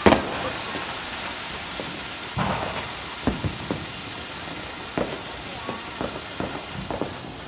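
Multi-colour fountain-type firework cracker ('falls') burning with a steady loud hiss, with a sharp crack right at the start and a few scattered pops and crackles as it sprays sparks.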